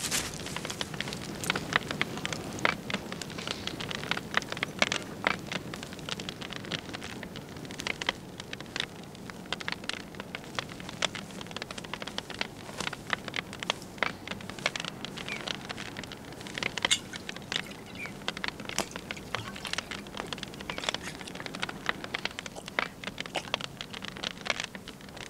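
Wood campfire crackling, with many irregular sharp snaps over a low steady rush of the flames.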